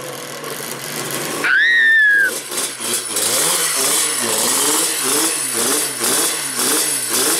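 Yamaha TZ two-stroke racing engine just caught on a push start, on its first run after a long restoration, with a brief shrill whistle-like note soaring up and falling away about one and a half seconds in. The rider then blips the throttle about twice a second, the engine rising and falling in pitch with each blip.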